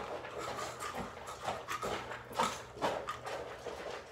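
House cats eating wet cat food from small tins, with irregular wet chewing and licking smacks.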